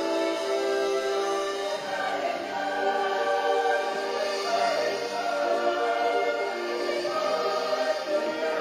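Show music: a choir singing long held notes over instrumental accompaniment.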